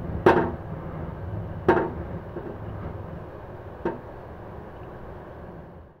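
Typhoon wind blowing back down a kitchen range hood's exhaust duct: a steady low rumble, broken by a few sharp knocks from the hood as the gusts push against it.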